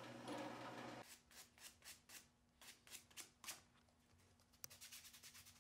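A drill press motor hums for about the first second, then stops. Faint short rasping strokes of sandpaper being rubbed by hand over a small poplar block follow, about three or four a second, getting quicker near the end.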